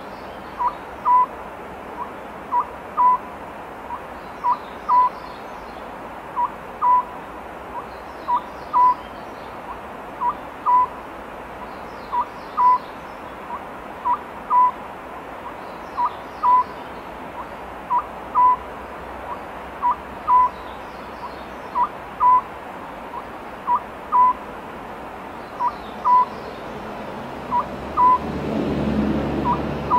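Oriental scops owl calling steadily, repeating a three-note phrase about every two seconds: two short notes and a longer final one, all at the same pitch. A low rumble rises near the end.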